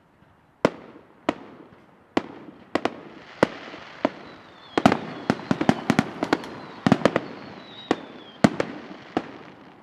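Aerial fireworks bursting: a string of sharp, loud bangs at irregular intervals, coming thick and fast in the middle, with crackling between them, thinning out near the end.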